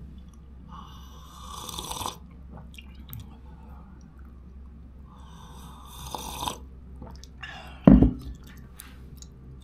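Two long slurping sips of a drink, each about a second and a half, growing louder and then stopping. A single loud thump comes about eight seconds in.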